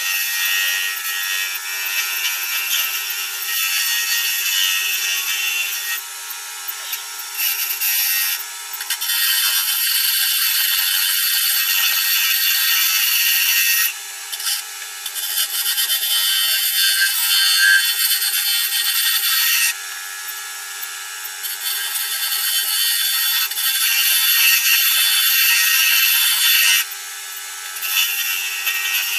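Wood lathe spinning a celery wood pen blank while a hand-held turning tool cuts it: a loud, steady high hiss that eases off for a moment several times as the tool's pressure changes.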